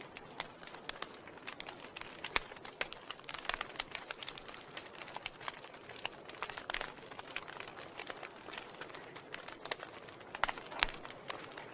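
Wood fire in a fireplace crackling: burning logs give irregular sharp pops and snaps over a soft steady hiss.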